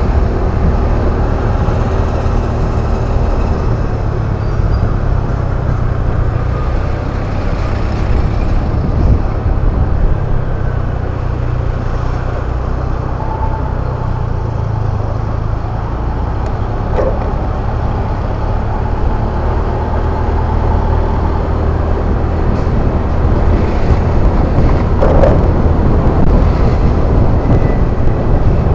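Motorcycle engine running through city traffic, a steady low hum that shifts up and down in pitch as the bike changes speed, with road and traffic noise around it. A couple of brief sharp sounds stand out, about halfway through and again near the end.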